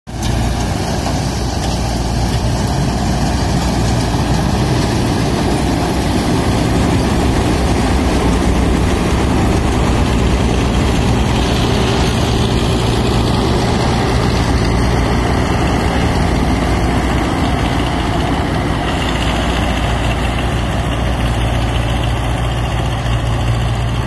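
Farmpower Balkar B-546 combine harvester running steadily under load, its engine and threshing machinery making a loud, even machine noise as it cuts and threshes a standing grain crop.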